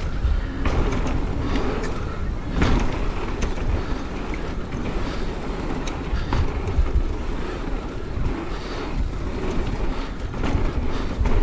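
Mountain bike riding fast down a dirt trail: wind rushing over the camera's microphone and tyres rumbling over the ground, with scattered knocks and rattles from the bike over bumps.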